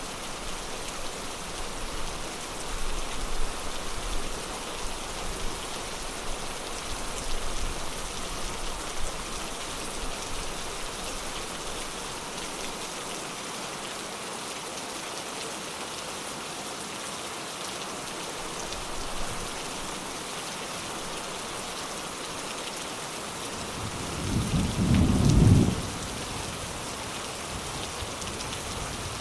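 Steady rain falling, with low thunder rumbling faintly in the first part and a loud clap of thunder lasting about two seconds near the end.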